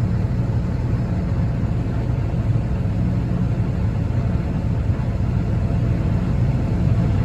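Tractor engine idling steadily, a low, even drone.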